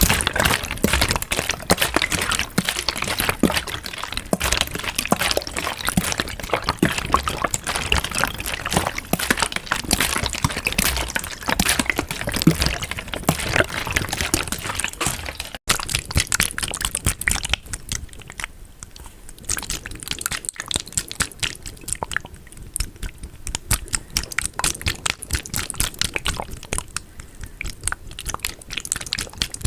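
Water close to the microphone, pouring and dripping in a dense run of small clicks and splashes. After a brief break about halfway through, the drips come sparser and quieter.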